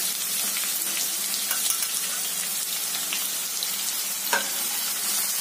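Chopped onions sizzling as they start to fry in hot oil with mustard seeds, curry leaves and green chillies in a nonstick kadhai: a steady frying hiss with scattered small crackles, and one sharper tick a little past four seconds in.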